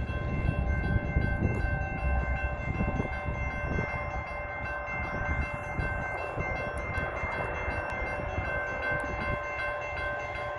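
Railroad grade-crossing warning bell ringing steadily while the crossing signals flash, over a low rumble that eases after the first few seconds.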